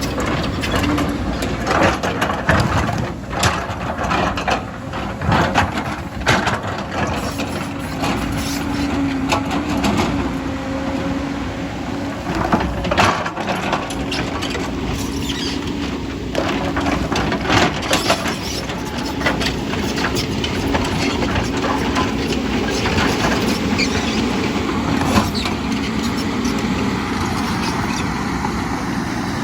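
Diesel engine of heavy earthmoving equipment running steadily under load, with frequent clanks and knocks from the machine working, most of them in the first half.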